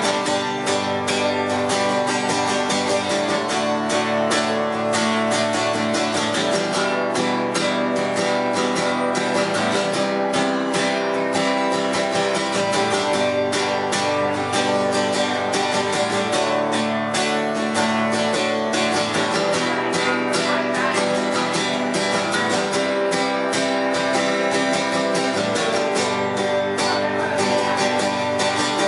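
Acoustic guitar strummed steadily in a live solo performance, with a dense, even rhythm throughout.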